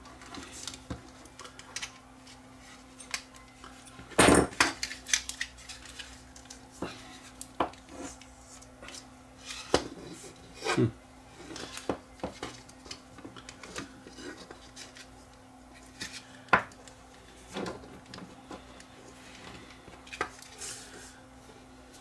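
Scattered clicks, snips and knocks of hands working on a power strip: steel electrician's scissors at the cord and set down on the bench, the plastic housing and wires handled. The loudest knock comes about four seconds in.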